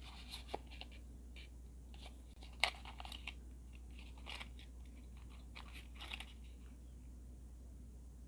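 Faint, scattered small clicks and taps of tiny plastic miniature pieces being handled, with one sharper click about two and a half seconds in; the clicking stops after about six seconds.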